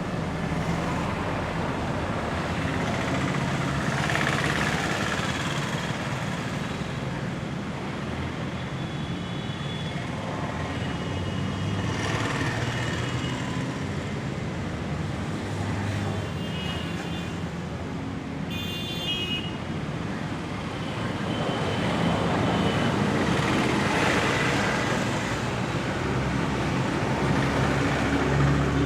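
Steady road traffic noise, with vehicle engines running and passing by. A short high-pitched beep sounds about two-thirds of the way through.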